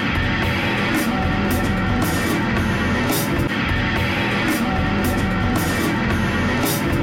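Loud heavy metal music: a drum kit played hard with cymbal crashes recurring every half second or so, over dense guitar-driven backing.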